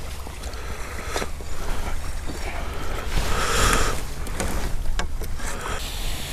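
Wind rumbling on the microphone and water lapping at the bank, with a few sharp clicks and a brief louder rush of noise a little past the middle.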